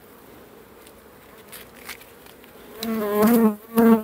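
Honeybees buzzing at an open hive: a faint steady hum, then near the end a bee buzzing loudly close by in two passes, its pitch wavering as it moves.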